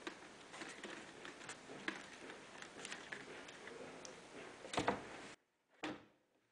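Handling noise from a desktop ID scanner being tilted and turned by hand: light clicks and rubbing, then a louder double knock about five seconds in as it is set down on the table. The sound then cuts out abruptly to silence.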